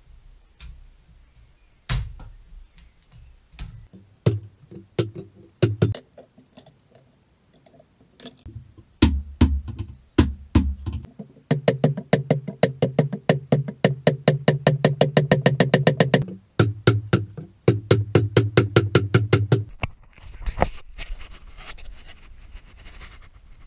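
Rawhide mallet striking a BMW E39 driveshaft at its centre joint to drive it apart, with single blows at first, then a fast, steady run of rapid strikes through the middle that stops near the end.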